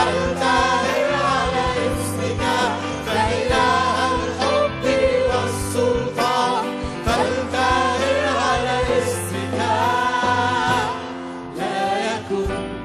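A congregation and worship singers sing an Arabic worship hymn together, with band accompaniment: held bass notes and regular cymbal hits.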